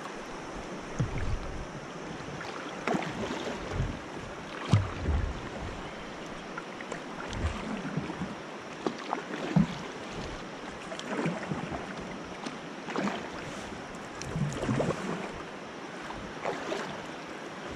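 Kayak paddle strokes dipping and splashing in swift river water, irregularly every second or two, over the steady rush of the current.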